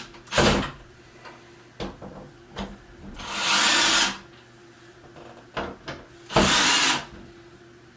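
Cordless drill driving screws to fasten a cabinet door's hinges, in three short bursts with small clicks between them.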